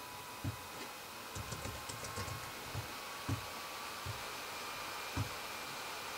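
Quiet, irregular taps and clicks of someone typing on a computer keyboard, with a quick run of light clicks about one and a half to two and a half seconds in, over a faint steady hum.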